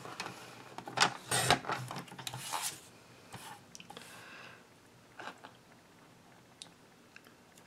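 Card stock being shifted and slid across a plastic paper trimmer, rustling and scraping, with a couple of sharp clicks about a second in. Fainter taps and ticks follow as the piece is lined up against the ruler.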